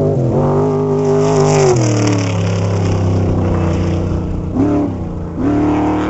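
Off-road desert race vehicle's engine running hard at high revs. Its pitch drops about two seconds in, dips again briefly near the end, then climbs back up.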